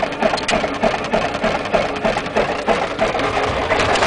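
Small single-engine plane's piston engine starting up, firing in uneven rapid pulses, then settling into steadier running near the end.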